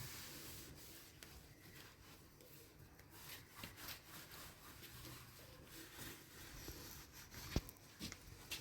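Near silence: faint room tone with scattered soft ticks and one sharp click about seven and a half seconds in.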